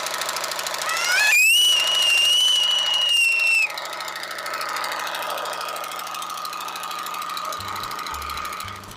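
Pressure washer running with a steady, pulsing hum. About a second in, a high whine rises and holds for a few seconds before cutting off.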